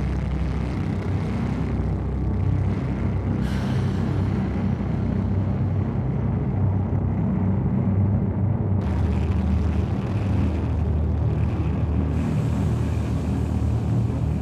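Dark ambient music: a steady low rumbling drone with a faint airy hiss above it.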